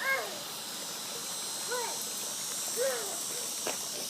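Insects, crickets or cicadas, making a steady high-pitched buzz, with three short high pitched calls rising and falling over it.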